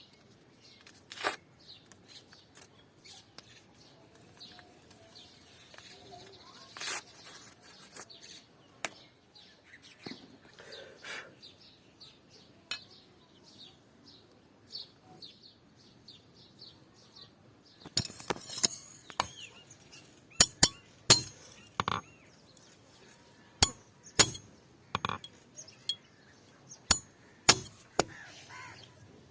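Sharp metallic clinks and taps, a few scattered ones at first, then coming about once or twice a second for the last ten seconds or so, each with a brief high ring.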